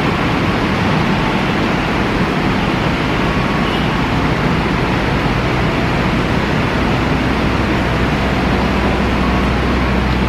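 Argo Lawu executive passenger train departing, its coaches rolling past at low speed with a steady rumble and hiss of wheels on rails. A low steady hum grows stronger in the second half.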